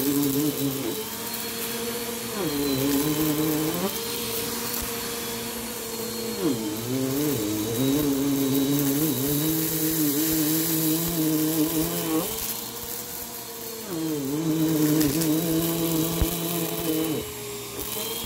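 Bissell PowerForce upright vacuum running on a shag rug with a steady motor hum. Its pitch drops and recovers a few times as the head is pushed back and forth through the pile.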